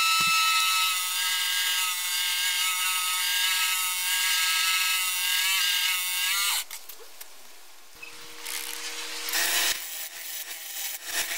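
A wood lathe spins a wooden blank while a 40 mm drill bit, fed by hand in a chuck, bores into its end with a steady high-pitched whine, rubbing hard enough to make the wood smoke. The whine stops abruptly about six and a half seconds in. From about eight seconds the lathe hums steadily and a turning tool scrapes the spinning wood in short passes.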